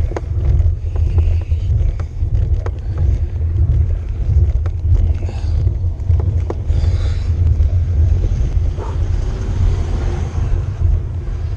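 Steady low rumble of wind and road vibration on a handlebar-mounted camera on a bicycle climbing a hill road, with scattered sharp clicks from the bike. A car passes close by near the end.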